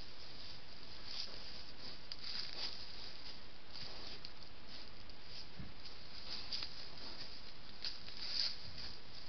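Soft, scattered rustles and crackles of an animal stepping through dry leaf litter, over the steady hiss of a trail camera's microphone; the sharpest crackle comes near the end.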